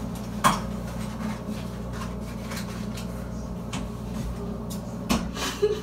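A few sharp knocks and clatters of things being handled at a kitchen counter over a steady low hum, the loudest about half a second in and two more near the end.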